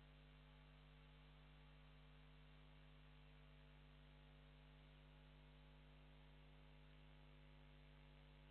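Near silence: a faint, steady electrical mains hum with its overtones under a low hiss, unchanging throughout.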